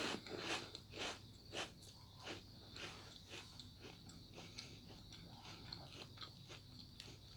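Crunchy biting and chewing of a crispy salted egg roll biscuit snack, about two crunches a second. The crunches are loudest at first and grow fainter and smaller as it is chewed down.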